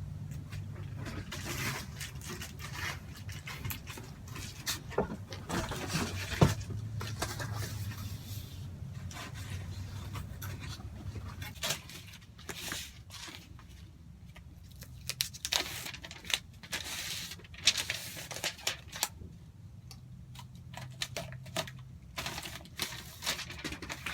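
Foil tape and Reflectix insulation being handled: irregular crinkling, scraping and tearing as tape is pulled off and pressed along the edges of a window cover. A low hum sits under the first half.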